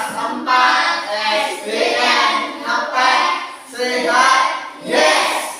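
A group of children singing together in several held phrases, each about a second long with brief breaks between.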